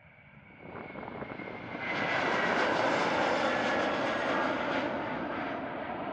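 KLM Airbus A330-200's twin turbofan engines at takeoff thrust as the airliner lifts off and climbs past. The jet roar swells quickly over the first two seconds, holds, then begins to ease, with a thin high whine at first.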